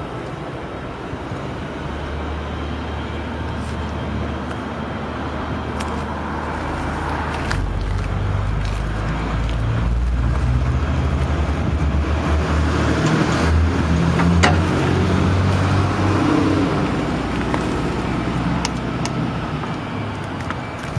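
Doosan S018VT mini track excavator's diesel engine running, its note rising and falling as the machine works, with a few sharp knocks, the clearest about fourteen seconds in.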